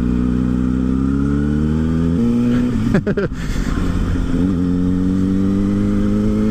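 Vehicle engine pulling under acceleration, its pitch climbing steadily. It drops at an upshift about two seconds in, then climbs again through the next gear.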